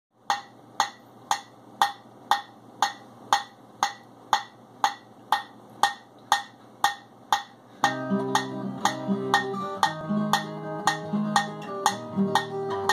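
A metal cooking pot struck with a spatula as a drum, a steady beat of about two hits a second. About eight seconds in, a guitar joins, playing notes over the beat.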